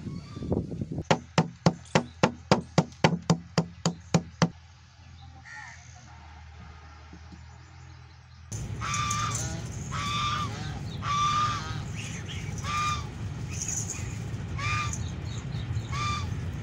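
A quick run of about a dozen sharp, evenly spaced knocks from a pestle pounding in a wooden mortar stops after a few seconds. After a quieter pause, domestic geese honk repeatedly, short calls a second or so apart.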